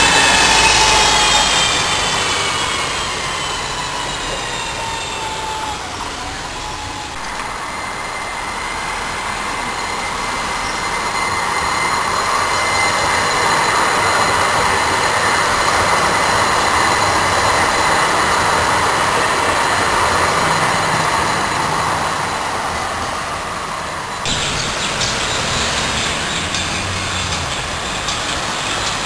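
A city transit bus pulling away, its whine falling in pitch over the first few seconds, then a MAX light rail train running past with a steady high whine over its rolling noise, loudest about midway. Near the end the sound cuts abruptly to street traffic.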